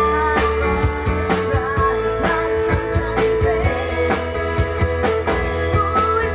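Rock-style band music with guitar and a steady drum beat.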